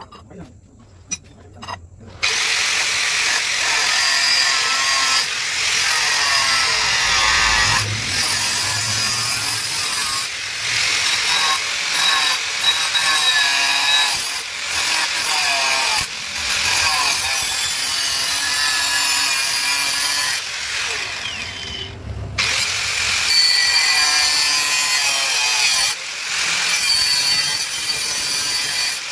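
Handheld angle grinder with a cut-off disc cutting through a metal rod, starting about two seconds in after a few light clicks, running with a high whine over a grinding hiss. It eases briefly about three-quarters of the way through, then cuts on.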